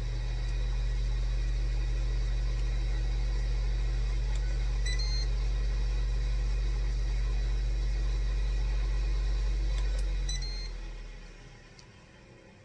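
Ninja cooking appliance's fan and heater running with a steady hum, two short control-panel beeps about five and ten seconds in, then the fan winds down and stops as the cook cycle is stopped to change the setting to roast.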